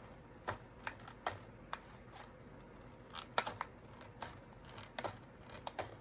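Scissors snipping through paper: short, sharp clicks at an uneven pace, some coming in quick pairs.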